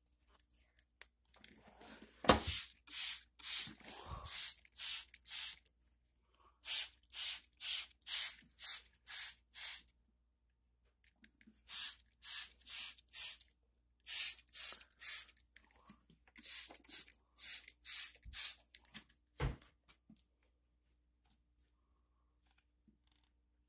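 Plastic trigger spray bottle misting water onto houseplants: quick hissing squirts about two a second, in five runs of several squirts with short pauses between. A dull thump from handling the bottle comes near the start and another near the end.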